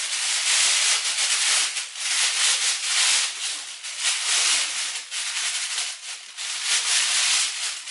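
Clear plastic wrapping crinkling and rustling in uneven surges as a microphone boom arm is pulled out of it and handled.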